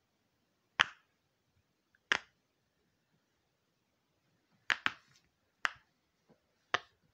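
Silicone pop-it fidget bubbles being pressed with a finger, giving about seven sharp pops at irregular intervals.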